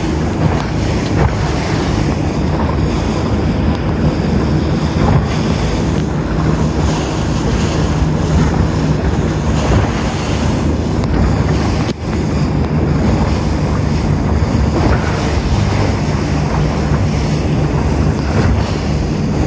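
Wind buffeting the microphone on a moving tour boat, over the steady drone of its engine and the rush of water along the hull.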